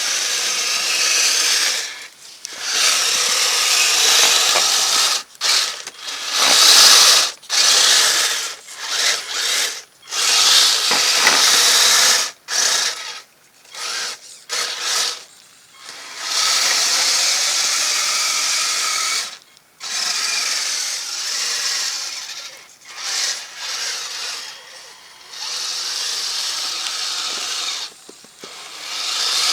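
Kyosho Blizzard RC snowcat's electric drive motors and gearboxes whirring in repeated stop-start bursts as the throttle is worked, some under a second and some several seconds long, with short pauses between.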